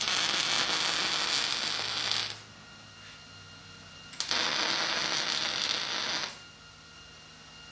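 Millermatic 211 MIG welder running 0.030 in solid steel wire on mild steel: two short welding passes, each about two seconds of steady arc noise, the first right away and the second about four seconds in, with a pause between.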